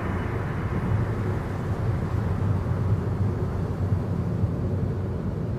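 Steady low road rumble and engine noise inside a car's cabin at highway speed.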